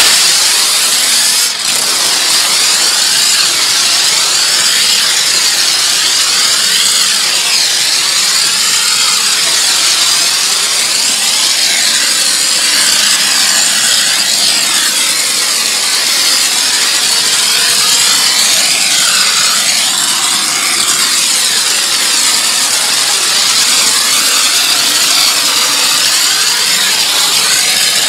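Pressure washer spraying water against a car's bodywork: a loud, steady hiss of spray that starts abruptly and shifts in tone as the jet sweeps across the surface.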